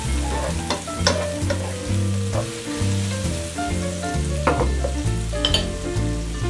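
Chopped vegetables and prosciutto sizzling in olive oil in a frying pan as it heats, with a few short clicks of the pan being stirred. Background music with a stepping bass line plays underneath.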